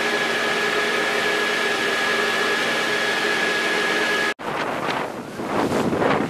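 A boat's engine running steadily under wind, heard from on board. About four seconds in the sound cuts off, and gusting wind buffets the microphone over the wash of the sea.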